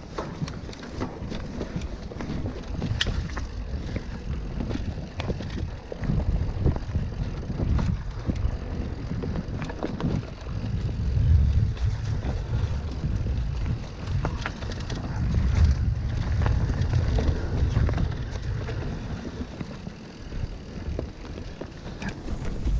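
Mountain bike ridden down a dirt woodland singletrack: tyres rolling over leaves and soil, with wind rumbling on the microphone and scattered clicks and rattles from the bike over bumps. The rumble grows louder in two stretches about halfway through.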